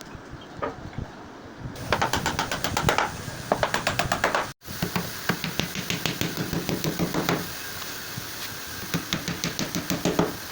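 Rapid series of sharp knocks on wood, several a second, with an abrupt break a little under halfway through and the knocking resuming after it.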